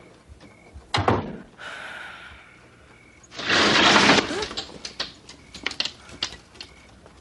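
A door thuds shut about a second in. About two seconds later comes a loud rush of noise lasting about a second, followed by scattered small clicks.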